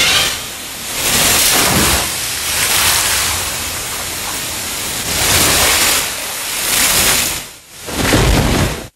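Rain-and-storm sound effect played over a hall's loudspeakers: a loud rushing hiss that surges and fades in waves, with a deeper rumble swelling near the end.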